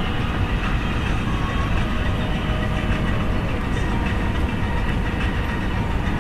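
Steady low rumble inside the cabin of an Airbus A320 as it rolls along the ground after landing, engines running.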